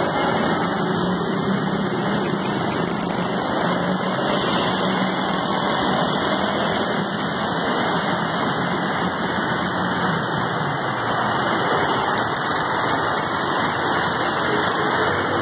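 Steady road traffic noise of motorcycles and auto-rickshaws passing close by, engines running, with no single event standing out.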